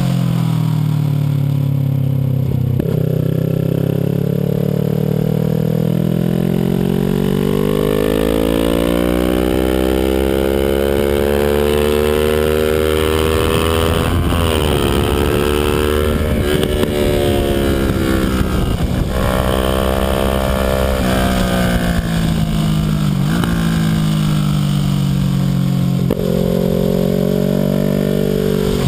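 Kawasaki Ninja 650R's parallel-twin engine running hard on track, its pitch climbing steadily for about ten seconds, dropping sharply, climbing again, then falling and rising once more near the end as the rider accelerates, backs off and shifts through the turns.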